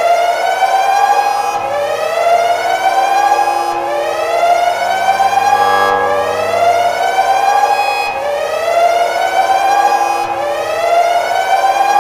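Siren sounding in repeated rising sweeps. Each sweep climbs in pitch for about two seconds, then drops back abruptly and starts again.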